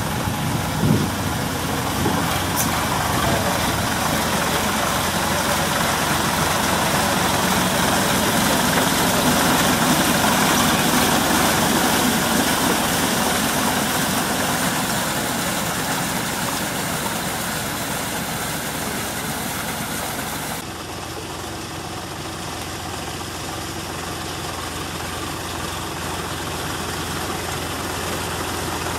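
Sonalika DI 47 RX tractor's diesel engine running steadily while working a rotavator through a flooded paddy field. It grows louder toward the middle and then eases, and turns abruptly duller about two-thirds of the way through.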